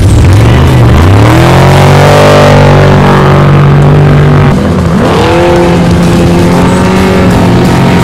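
Off-road race truck engine revving hard under full acceleration. The pitch climbs about a second in and holds high, dips sharply just past halfway, then climbs again.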